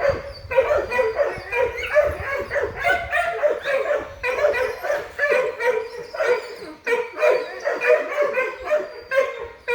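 Dog yipping and barking over and over, short high calls two or three a second.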